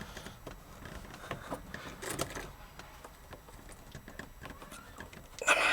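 Faint clicks, taps and scrapes of hands and a tool working at a plastic fuel-line quick-connect fitting, with a short louder noise about two seconds in and a brief rushing noise near the end.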